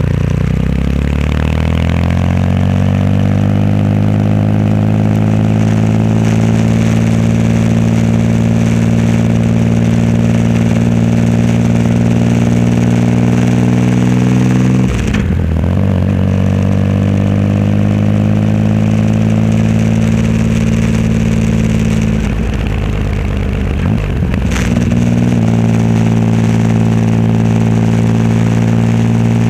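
Triumph Rocket 3 Roadster's inline-triple engine running through a custom exhaust on the move. It picks up revs over the first few seconds, then holds steady. The revs dip briefly about halfway through and again near the end before settling.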